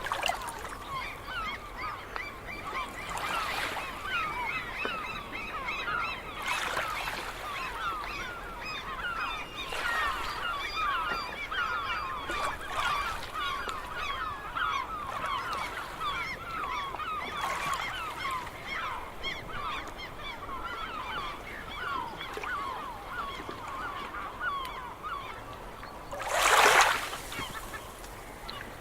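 A large flock of gulls calling without pause, many short falling cries overlapping, with soft rushes of noise every few seconds and one loud rush of noise near the end.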